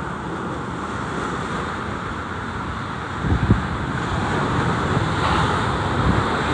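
Strong wind buffeting the phone's microphone over the rush of rough sea waves crashing and splashing, with a louder surge about three seconds in.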